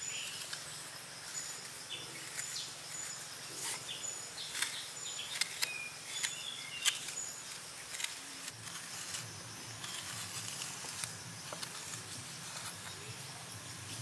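Outdoor ambience with a short, high chirp repeating every second or less over a steady low hum. Scattered soft clicks and scrapes come from hand tools working wet mud.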